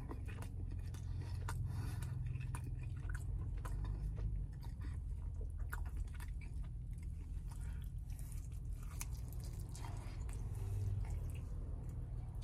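A man chewing a sauced garlic parmesan chicken wing close to the microphone: small wet clicks and smacks from the mouth, with a fresh bite near the end. A steady low hum runs underneath.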